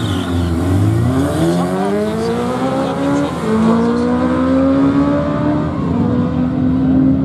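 Sport-bike engines launching off the line in a drag race and accelerating hard, the pitch climbing steeply, dropping at an upshift about three and a half seconds in, then climbing again.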